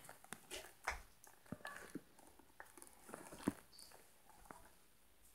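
Faint scattered clicks, taps and rustles, the loudest about three and a half seconds in: handling noise of a handheld phone being moved about.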